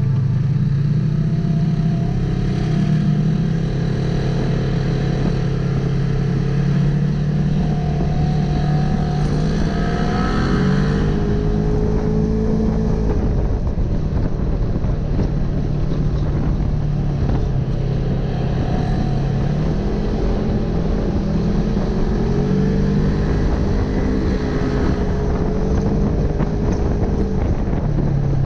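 Polaris RZR XP 1000 side-by-side's twin-cylinder engine running steadily while driving, its note rising and falling with the throttle about ten seconds in and again just past twenty seconds.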